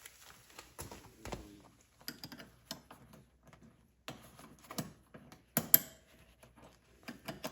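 Steel wrench clicking and tapping on the locking nuts of a differential lock pedal as they are tightened down, in irregular sharp clicks with one louder knock a little past two-thirds through.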